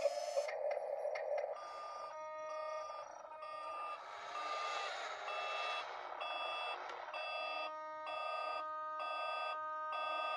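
Electronic reversing beeper of an RC toy wheel loader's sound module, beeping steadily about one and a half times a second as the loader backs up. A rushing hiss runs behind the beeps around the middle.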